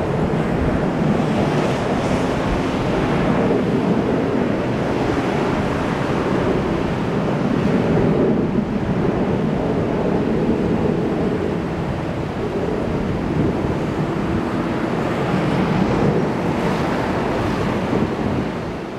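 Jet engines of a Boeing 737 airliner climbing away on a go-around, a steady, loud rumbling roar with wind on the microphone. It fades out near the end.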